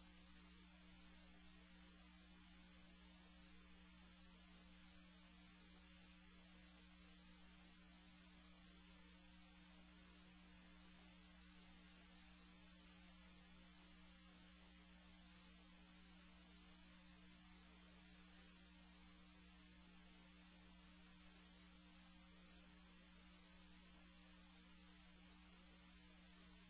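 Near silence: a faint, steady electrical hum with low hiss.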